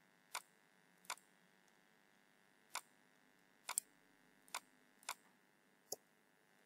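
Sparse, short clicks of a computer mouse and keyboard keys, about eight in all, two in quick succession a little under four seconds in, over faint room tone.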